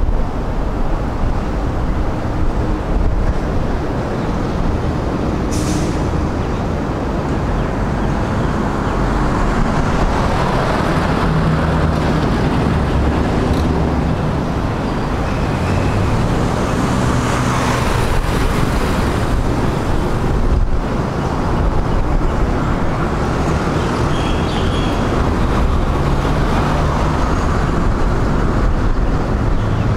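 Road traffic noise: a steady rumble of engines and tyres, swelling as cars pass close by.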